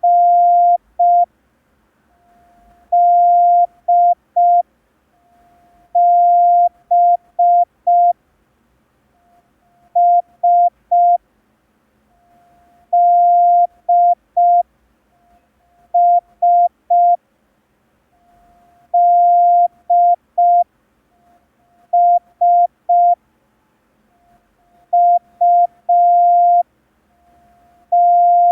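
Morse code practice tone: one steady beep keyed on and off in long dashes and short dots, sending one character about every three seconds with silent gaps between. Most characters start with a dash followed by two or three dots.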